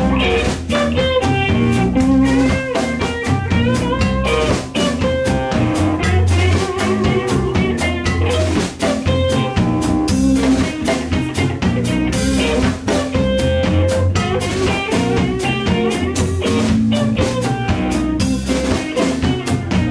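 Live blues band playing an instrumental passage: electric guitars over bass guitar and a drum kit.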